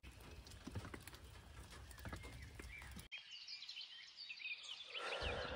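Light rain pattering, with scattered drops ticking, for about three seconds. It then cuts off abruptly and gives way to birds chirping.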